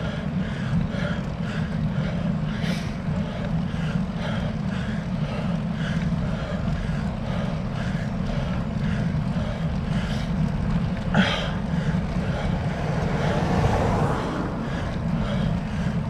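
Bicycle climbing a steep hill, heard through a bike-mounted camera's microphone: a steady low rumble of tyres on tarmac and wind, with a sharp click about eleven seconds in.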